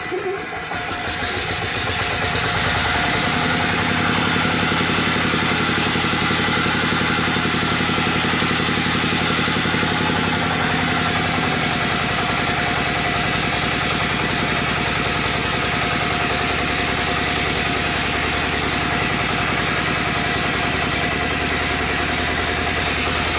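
An engine-driven wood saw running steadily after building up over the first couple of seconds, its motor drone mixed with a loud hiss.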